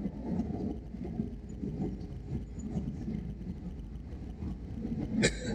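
Airbus A320 cabin noise on approach: the steady low rumble of the engines and airflow past the fuselage, heard from a window seat over the wing. A brief sharp sound comes about five seconds in.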